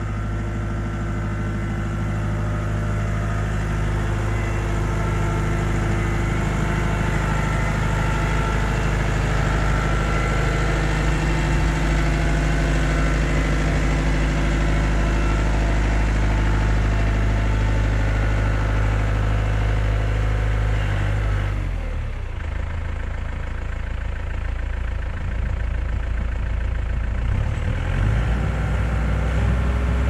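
Tractor engine running steadily while working a rotary tiller. About three-quarters of the way through, the engine note drops and changes, then builds up again near the end.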